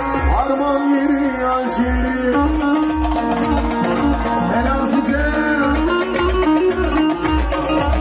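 Instrumental Turkish folk music: an amplified bağlama (saz) plays a plucked melody over a steady low beat of about two pulses a second.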